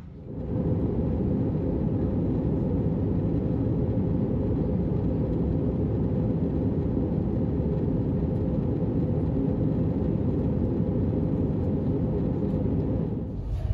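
Steady rumble of a jet airliner in cruise, heard from inside the passenger cabin, deep and even with no change in pitch. It comes in about half a second in.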